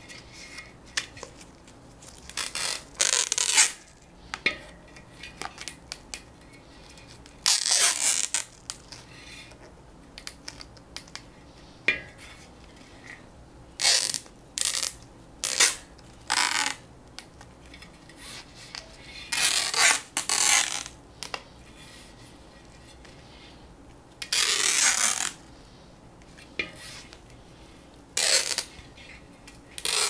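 Gaffer tape being pulled off its roll and pressed onto a bicycle wheel rim, in short bursts from half a second to about a second long, every few seconds.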